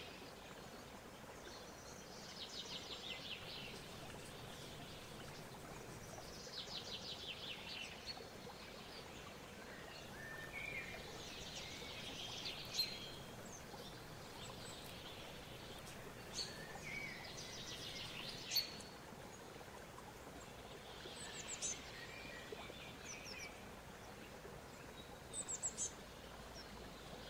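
Faint bird song: short trilled phrases repeating every few seconds over a steady background hiss, with two sharp clicks partway through.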